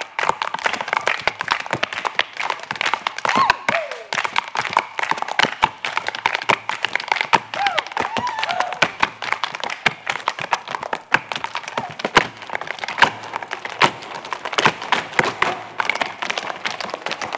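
Irish dancers' hard shoes beating out rapid, irregular taps and heavier stamps on the stage floor with no music, a dense rattle of heel and toe strikes with sharper accents throughout.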